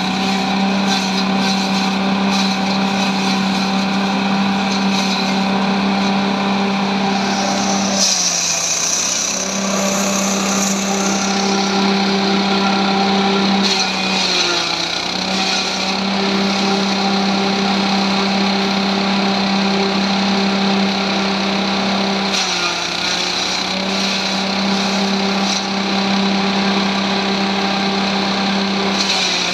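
Multifunction grass chopper running steadily with a constant machine hum; its pitch dips briefly three times.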